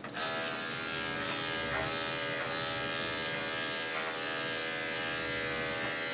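Electric dog-grooming clippers running at the dog's head, a steady, even buzz that starts abruptly at the beginning and stops near the end.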